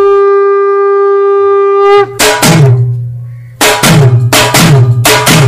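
Music: a single long, steady horn-like note cuts off about two seconds in, then a loud drum beat with a deep bass tone starts, briefly dropping back before the drumming picks up again near the end.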